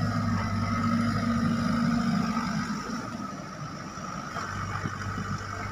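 Hydraulic excavator's diesel engine running steadily with a low drone. It is louder in the first couple of seconds while the machine works, then eases slightly about three seconds in.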